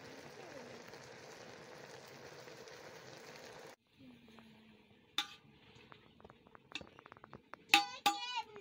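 A pot of leafy greens boils hard over a wood fire, with a steady hissing bubble that stops abruptly about four seconds in. After that, a metal spoon knocks and clinks in the aluminium pot as it is stirred. A child's high voice calls out loudly near the end.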